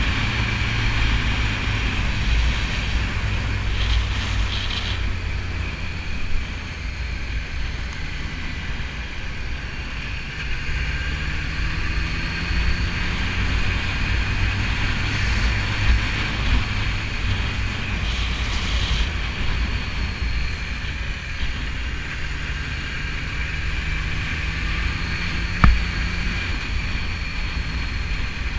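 BMW S1000RR inline-four engine running under way, with wind rushing over the microphone; the engine note rises and falls a little. A single sharp tap near the end.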